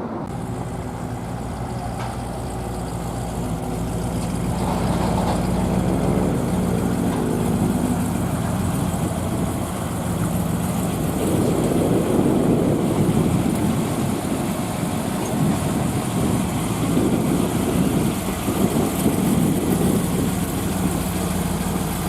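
A car engine idling with a steady low hum, getting louder about four seconds in.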